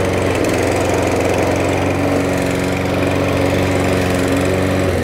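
Hyundai HYM430SPER self-propelled petrol lawnmower engine running steadily, cutting out just before the end.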